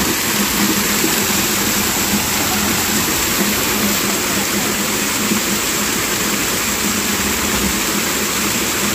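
Small hillside waterfall splashing steadily onto rocks, with water pouring into a plastic jerrycan held under the falling stream to fill it.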